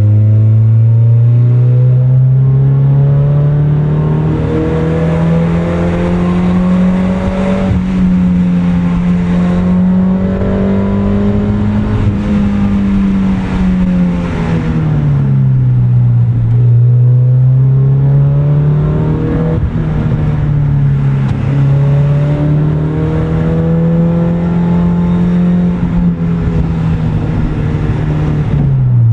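1990 Mazda MX-5 Miata's 1.6-litre inline-four running through a FOX cat-back exhaust under way, holding a steady pitch. The pitch climbs at first, dips and comes back up about halfway, and falls away right at the end.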